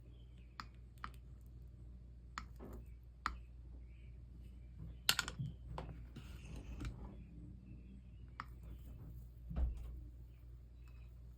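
Scattered light clicks and taps of small tools and metal parts being handled during soldering work, with a cluster of sharper clicks about halfway through and a dull thump near the end, over a steady low hum.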